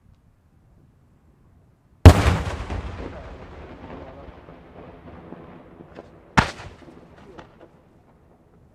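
Maltese daytime aerial firework shells bursting overhead. One very loud bang about two seconds in, its rolling echo dying away over several seconds, then a second sharp bang about four seconds later with a few small cracks around it.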